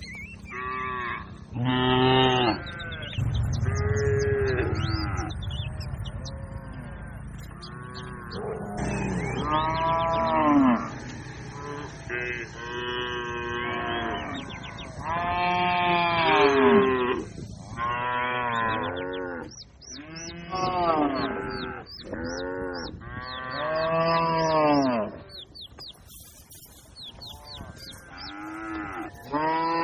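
Cattle mooing, one call after another with some overlapping: about fifteen moos, each about a second long, rising then falling in pitch, with a lull near the end.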